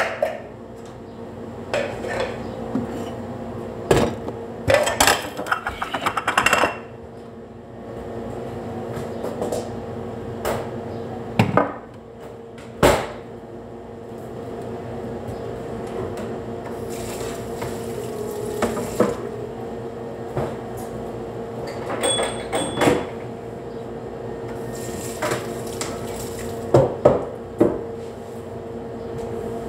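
Kitchenware being handled on a countertop: scattered knocks and short bursts of clatter over a steady background hum.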